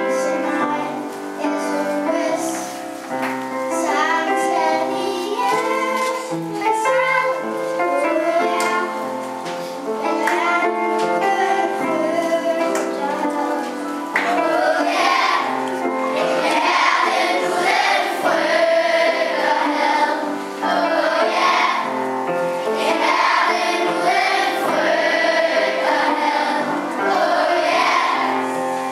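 Children's choir singing a song together, the voices growing fuller and louder about halfway through.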